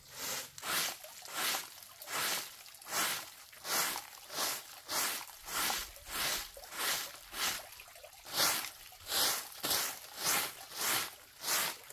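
Steady back-and-forth strokes by hand, about two a second, each a short hissing scrape.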